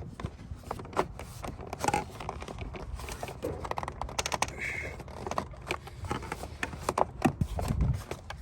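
Plastic air intake ducts being handled and worked into place: scattered clicks, knocks and scraping of plastic parts.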